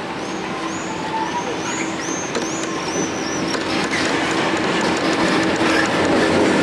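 A train approaching, its sound growing steadily louder, with a steady hum and wheels clicking over the rail joints. A run of high, arching chirps sounds over it in the first few seconds.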